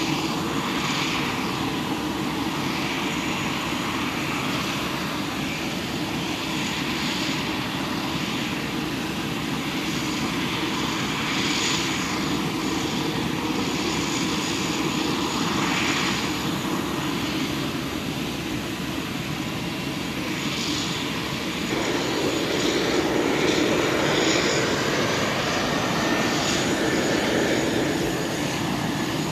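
Steady jet aircraft noise on an airport apron, a continuous rush and whine. About three-quarters of the way through it grows louder, with a faint rising whine.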